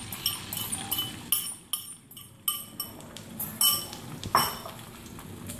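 Kitchen utensils clinking: about a dozen sharp clinks, each with a brief ring, coming irregularly over the first four and a half seconds, the loudest one near the end of the run.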